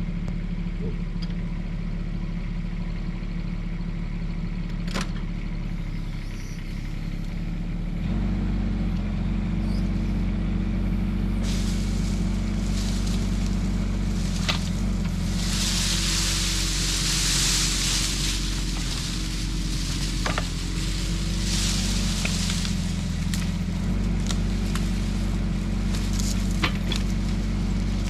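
Bobcat E10 mini excavator's engine running steadily, stepping up to a higher, louder speed about eight seconds in as the machine is put to work. A hiss rises over it for several seconds in the middle, with scattered clicks and knocks from the arm and bucket working the slope.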